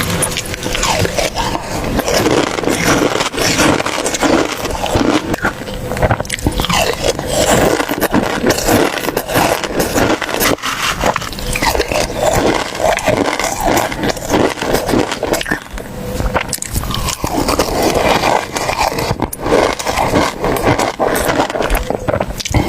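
A person eating: close, irregular crunching and chewing with scraping sounds.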